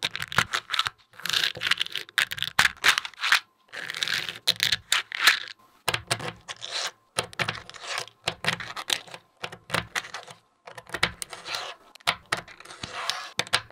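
Small neodymium magnetic balls clicking and snapping together, with rattling scrapes as strands of balls are rolled and pressed into shape. The sound comes in irregular bursts of rapid clicks with short pauses between.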